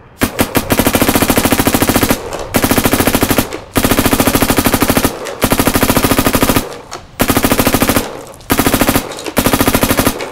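Virtue Ace Luxe X electronic paintball marker, fed from a Spire IV loader, firing in burst mode at about 15 balls per second. There are a few single shots, then about seven rapid strings of shots with short pauses between them, like a sewing machine.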